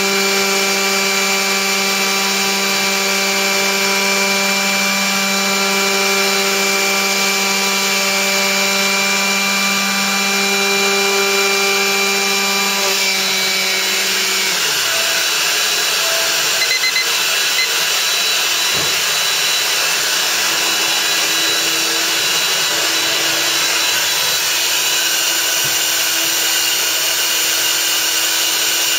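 An electric power tool's motor runs with a steady whine, then is switched off about halfway through and spins down. A steady rushing noise continues underneath throughout, with a couple of brief high beeps soon after the motor stops.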